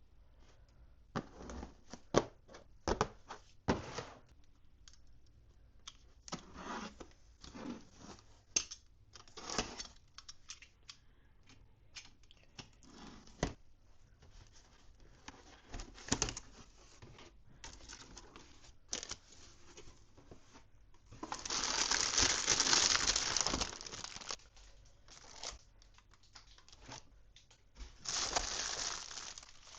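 Toy packaging being opened by hand: plastic and paper crinkling and crackling in many short sharp bits, with two longer, louder tearing stretches, one about three-quarters of the way in and a shorter one near the end.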